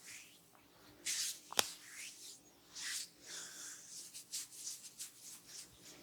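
Hands rubbing and massaging skin and hair in repeated strokes, with quicker, shorter rubs in the second half. A single sharp click comes about one and a half seconds in.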